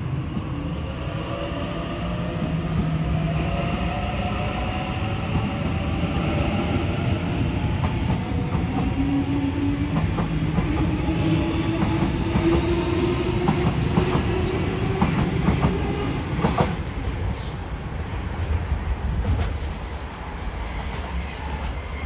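Double-deck Sydney Trains electric train pulling away, its traction motors whining steadily higher in pitch as it gathers speed, over a constant rumble. In the middle stretch its wheels clack sharply over rail joints and points.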